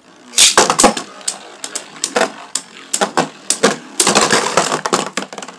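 Spinning Beyblade tops clashing with each other and rattling against the walls of a plastic stadium: a fast, uneven run of sharp clacks, with a loud cluster about half a second in and a dense rattle from about four seconds in.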